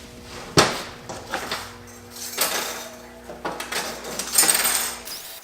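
Metal parts and tools clinking and knocking on a workbench, with one sharp knock about half a second in and scattered scraping clatter after it. A steady low hum runs underneath and stops near the end.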